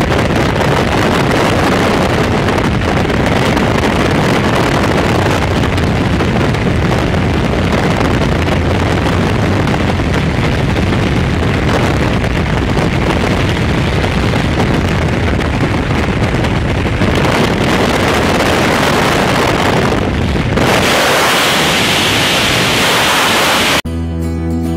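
Freefall wind rushing over the camera's microphone, a loud, steady roar. About 21 seconds in it thins to a higher hiss, and near the end it cuts off suddenly into acoustic guitar music.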